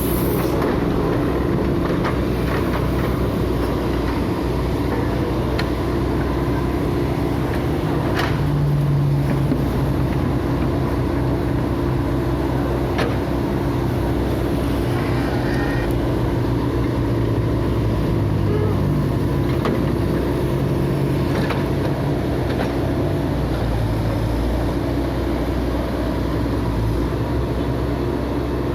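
Heavy earthmoving machine's engine running steadily during building demolition, with a few sharp knocks, about 8 and 13 seconds in.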